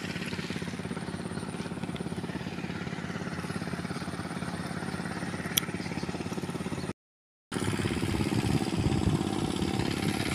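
Small motorcycle engine running steadily at low speed with a fast, even beat. The sound cuts out for about half a second some seven seconds in, then returns a little louder, its pitch wavering.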